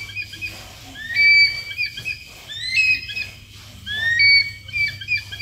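Crested serpent eagle giving its shrill call three times, about a second and a half apart. Each call is a rising note that runs into a held high whistle, followed by a few short notes.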